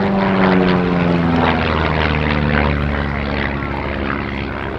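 Pitts Special aerobatic biplane's piston engine and propeller flying past. The engine note drops steadily in pitch as the aircraft goes by.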